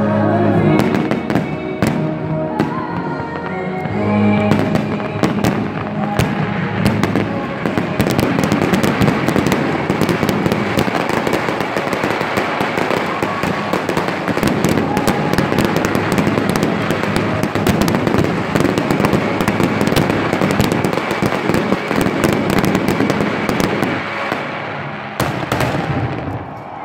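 Fireworks display: a rapid, dense barrage of crackling bursts and bangs from aerial shells, thinning out near the end. Show music plays underneath and is clearest in the first few seconds.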